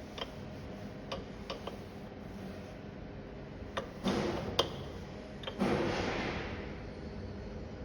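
Light metal clicks and two short rasping scrapes of a spanner working the pressure-adjustment nut on a single-punch tablet press, over a faint steady hum.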